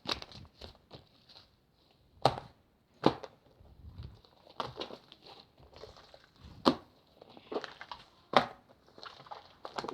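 Slime being squeezed and pressed by hand, with a soft crackling and four loud, sharp pops.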